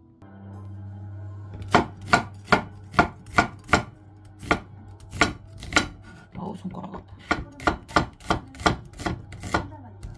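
Kitchen knife slicing a peeled onion on a wooden cutting board: sharp knocks of the blade on the board, about two to three a second, starting a little under two seconds in.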